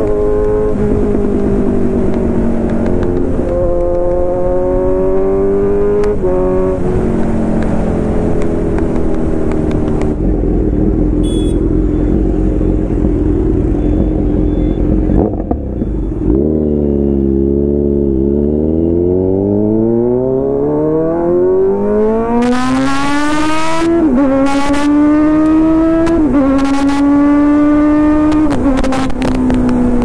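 Kawasaki Z900's inline-four engine through an Arrow full-system exhaust, heard from the rider's seat while riding: the revs climb and drop through gear changes, ease off for a few seconds mid-way, then build in one long rise in pitch before two quick upshifts near the end.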